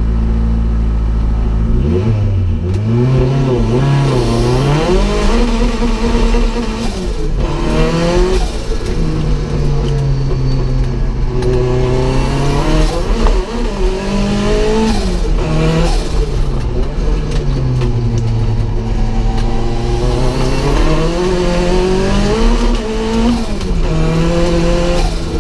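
Turbocharged Ford Escort race car's engine heard from inside the cabin, accelerating hard and changing up through the gears. Its pitch climbs and drops back about four times.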